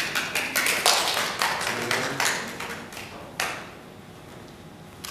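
A small group clapping briefly: a quick run of irregular claps that thins out and stops about three and a half seconds in.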